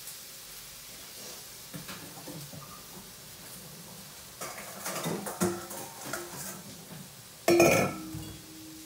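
Dishes and cookware being handled in a kitchen: quiet at first, then scattered clinks and knocks from about halfway through, and one loud clank near the end that leaves a short ringing tone.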